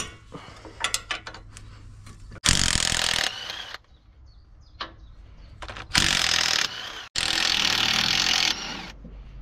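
Makita 18V cordless impact driver with a socket, run on bolts in a diesel engine bay in three bursts of about a second each, the first about two and a half seconds in, with small metal clicks and handling between them.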